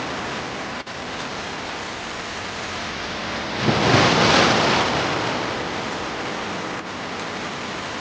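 Sea waves and surf washing steadily, with one wave swelling louder about four seconds in.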